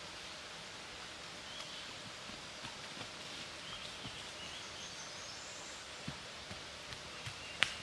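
Woodland ambience: a steady outdoor hiss with faint distant birdsong and a few light ticks and rustles, then one sharper click near the end.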